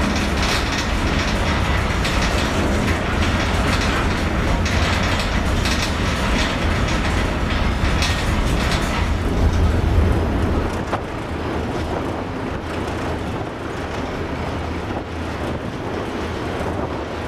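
Steady deep rumble with a rushing noise, heard on board a ferry. The rumble eases somewhat about ten seconds in.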